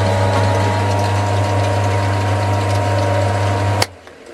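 Small metal lathe running under motor power, a steady hum with a whine over it. Near the end a sharp click, and the running sound cuts off at once as the lathe is switched off and the chuck coasts down.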